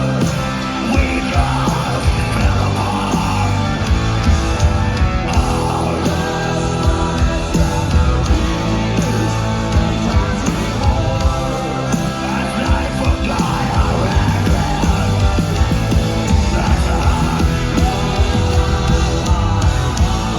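Live rock band playing loud distorted guitars, bass and drums, with a shouted, sung lead vocal.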